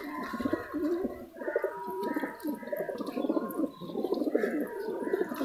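A flock of domestic pigeons cooing, many low calls overlapping.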